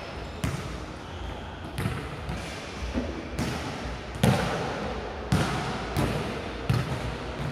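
Balls bouncing and thudding in a reverberant gym hall: about eight irregular, separate impacts, each with an echoing tail.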